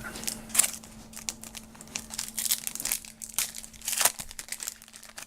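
Wrapper of a trading card pack crinkling and tearing as it is opened by hand, in a run of irregular crackles.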